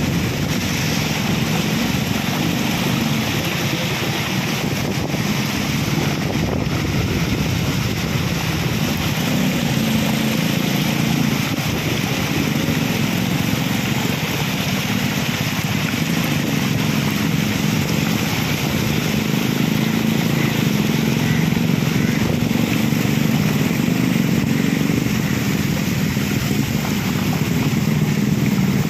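Motorcycle engine running steadily as the bike rides through shallow floodwater, under a constant rush of wind on the microphone and tyres hissing through the water; a little louder in the last third.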